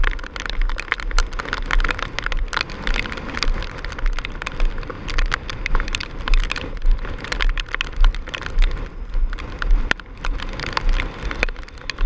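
Storm wind buffeting the microphone in pulsing low rumbles, with driving rain pelting it in a dense crackle of taps.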